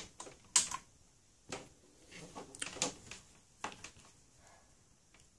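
A sharp click about half a second in as the bench power supply's power switch is flipped on, then several lighter clicks and knocks as multimeter test probes and leads are picked up and handled.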